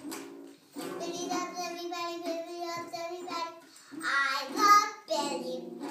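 A young girl singing her own made-up song in held notes with short breaks, belting loudest about four to five seconds in.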